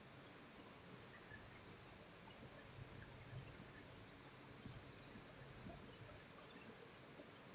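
Near silence with faint insects chirping, a small high chirp about once a second.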